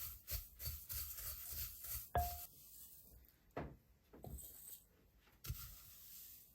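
Kitchen preparation noises: a run of quick rubbing or scraping strokes, then a sharp knock with a short ring about two seconds in, followed by a few softer knocks.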